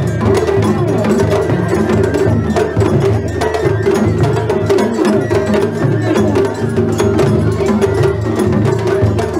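Japanese festival float music (matsuri-bayashi): taiko drums beaten in a quick, continuous rhythm, with a steady held pitched tone running through it.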